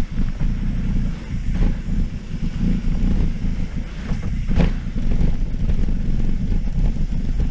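Wind buffeting the camera microphone of a mountain bike descending a downhill trail at speed, mixed with the bike rattling over rough, brake-bumped ground. A sharper knock comes about four and a half seconds in.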